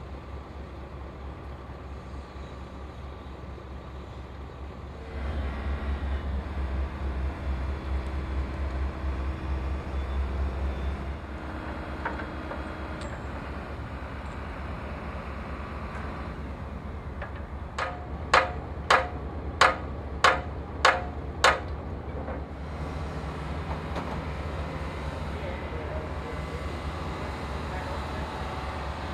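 Mobile crane's diesel engine running steadily, louder for several seconds early in the lift, with six sharp knocks about half a second apart past the middle.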